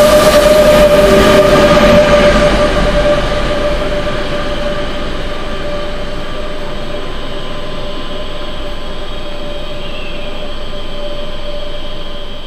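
Crossrail BR 186 electric locomotive (Bombardier TRAXX) and its freight train passing close by, then pulling away. The train noise is loudest for the first two or three seconds and fades as it recedes, with a steady electric whine running under it.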